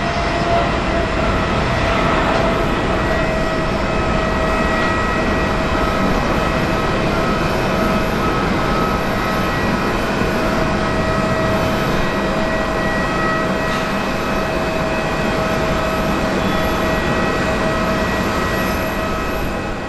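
Jet airliner engines running steadily at low power, a constant whine over a broad rush.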